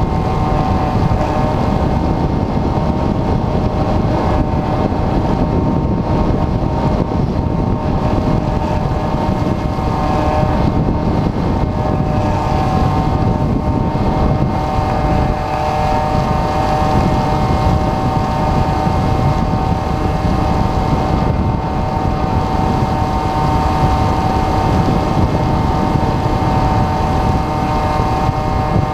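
In-flight sound from an onboard camera on an Airfield Extreme Surfer 2400mm RC glider: airflow buffeting the microphone, with the steady whine of its electric motor and propeller running under power.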